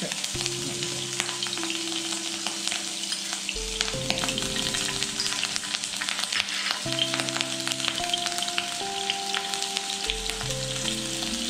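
Hot oil sizzling and crackling in a wok as garlic paste is added to it. Soft held tones, changing pitch every second or so, run underneath.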